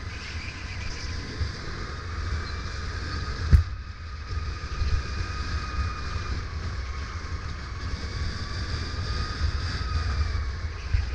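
Electric motor of a Sodi RSX2 e-kart whining under way, its pitch slowly rising and falling with speed, over a constant low wind rumble on the onboard microphone. A single sharp knock about three and a half seconds in.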